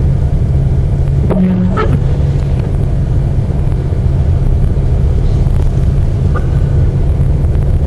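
Car driving at road speed, heard from inside the cabin: a steady low rumble of engine and tyres.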